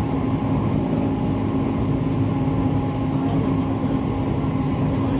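Siemens C651 MRT train running at speed, heard from inside the carriage: a steady rumble of wheels and running gear with a constant low hum.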